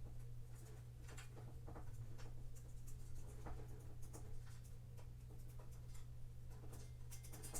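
Light clicks, taps and scraping of small metal shelf parts and screws being handled and fitted during hand assembly, with a quick run of clicks near the end, over a steady low hum.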